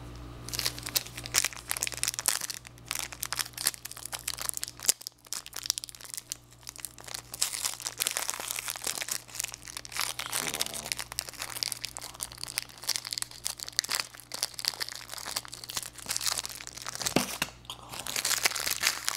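Foil trading-card pack wrappers being torn open and crinkled by hand: dense, irregular crackling and crinkling.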